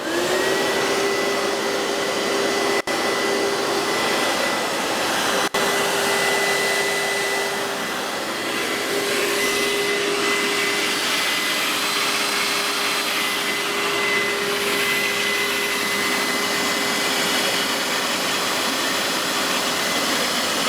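Hoover SteamVac carpet cleaner switched on and running: its motor spins up in about half a second to a steady whine over the rush of its suction fan, with two momentary dropouts in the first few seconds.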